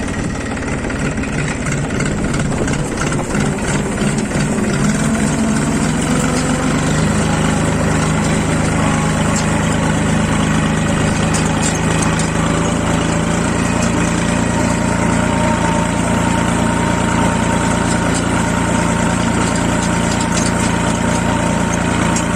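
Engine running steadily as it pulls a homemade roller crimper through tall grass; its pitch steps up about seven seconds in and then holds.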